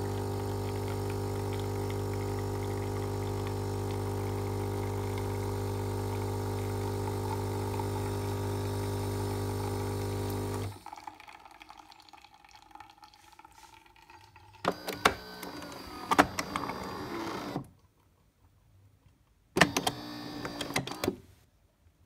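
Philips HD8844 espresso machine's pump running with a steady hum while coffee is dispensed, cutting off suddenly about halfway through. Two shorter clattering mechanical noises follow, about three seconds and then a second and a half long.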